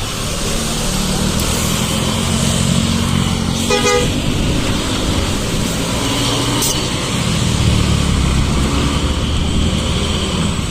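Bus engine running hard under load with a steady low drone, and a short horn blast about four seconds in.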